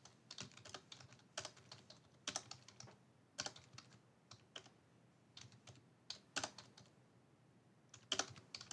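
Faint computer keyboard typing: irregular runs of key clicks with short pauses, a gap of over a second, then a last quick run near the end.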